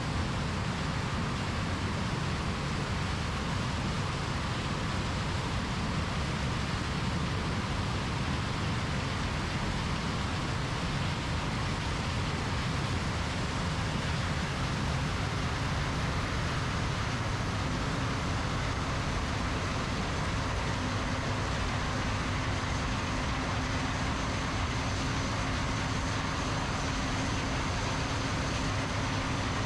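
Combine harvesters running steadily while harvesting corn, a continuous deep machine drone. A faint high whine joins about twenty seconds in.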